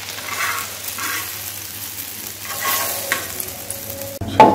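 Egg-dipped shami kebabs sizzling in hot oil on a flat iron tawa, with a knife scraping across the pan a few times as they are moved. Near the end comes a sudden loud metal knock.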